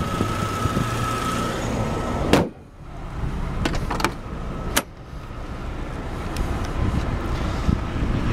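A 1992 Chevrolet Cavalier's 2.2-litre four-cylinder idling as the hood is slammed shut about two seconds in, which suddenly muffles the engine. A few seconds later the outside door handle and latch click and the driver's door opens, and the idle grows louder again.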